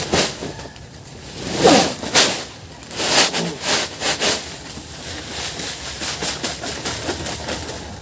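Dry sawdust being tipped out of a sack and spread on the chicken-house floor: a run of uneven rustling, hissing pours, then a quieter steady rustle.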